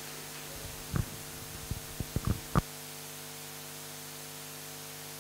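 Steady electrical hum with a handful of short, low thumps about one to two and a half seconds in.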